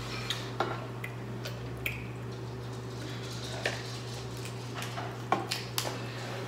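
Scattered short clicks and cracks of crab-leg shells being broken open by hand, over a steady low hum.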